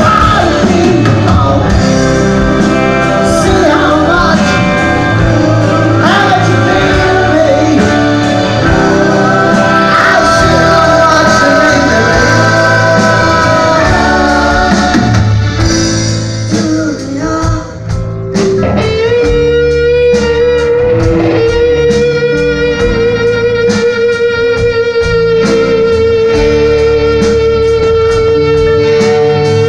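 Live rock band playing with electric guitars, drums, keyboards and violin. The sound thins out briefly a little past halfway, then a long held note with a slight waver rings over a steady beat.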